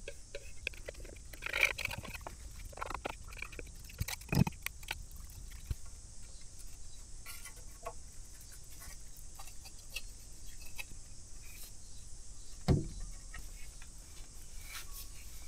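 Workbench handling sounds: a steel knife scraping along a wooden oar as epoxy is worked into its split, with scattered small clicks and a couple of louder knocks, one about four seconds in and one later, as the oar is moved on the wooden bench, and a cloth rubbing over it.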